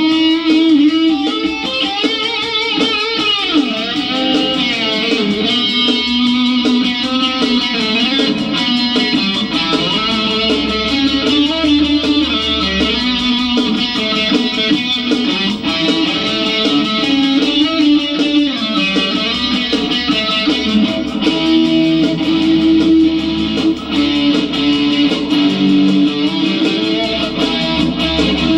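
Electric guitar being played, a continuous instrumental passage with no singing.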